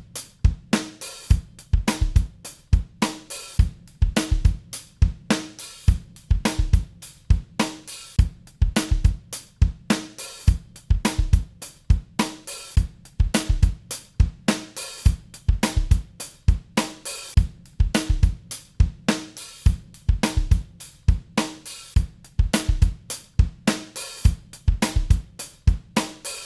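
Drum kit playing a steady repeating beat of bass drum, snare, hi-hat and cymbal hits, which stops abruptly at the end.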